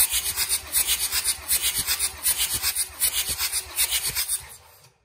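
Mercedes-Benz OM642 3.0 V6 turbodiesel being cranked over by its starter with a compression gauge fitted, for a cold compression test of the sixth cylinder. The cranking is a fast, even, rhythmic rasping that stops shortly before the end.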